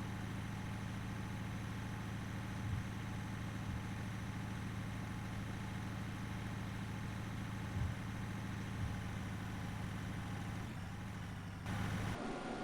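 A vehicle engine running steadily at a low, even speed, with a few short thumps, two of them close together about three seconds in and again about eight seconds in.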